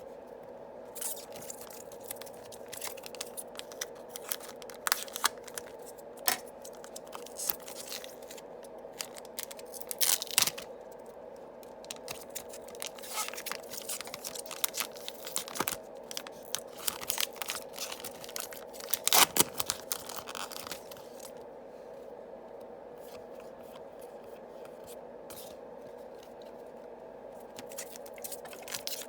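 Yu-Gi-Oh booster packs being opened by hand: foil wrappers tearing and crinkling and cards being handled, in irregular clusters of sharp crackles that die down for the last several seconds. A faint steady hum runs underneath.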